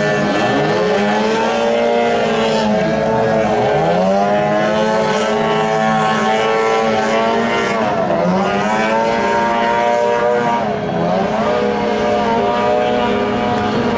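Several racing boats' engines running flat out together at high revs, their pitches sweeping down and back up several times as the boats pass.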